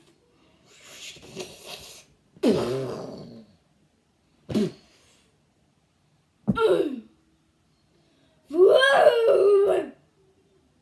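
A child's voice making wordless fight noises: a hissing sound about a second in, then three short cries that drop in pitch, and a longer, wavering wail near the end.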